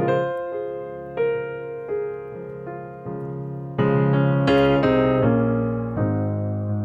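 Background piano music: a slow melody of held notes over a low bass, louder from about four seconds in.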